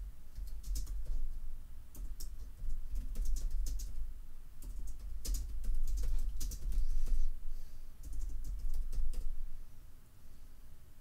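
Typing on a computer keyboard: irregular runs of key clicks with short pauses, over a low rumble.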